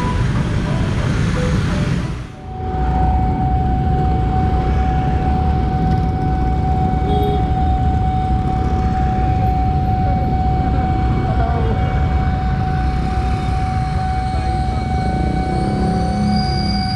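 Motorbike engines running and street traffic at a railway level crossing, with a steady high warning tone from the crossing signal that starts after a brief dip in sound about two seconds in.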